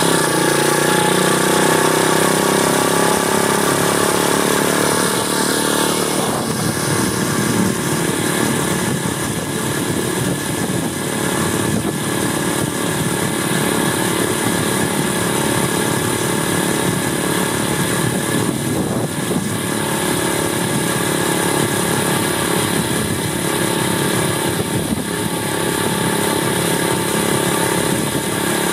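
Apollo 125cc pit bike's single-cylinder four-stroke engine running under way, its pitch shifting over the first several seconds and then holding fairly steady, with a constant rush of wind past the bike.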